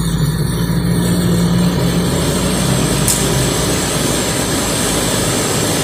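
Cotton candy machine running during its warm-up before production: a steady low hum under a loud rushing noise, the hum weakening about three seconds in. There is a short high tick at about the same point.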